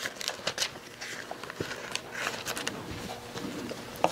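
Thin Bible pages being leafed through and turned by hand, a run of short papery rustles and flicks.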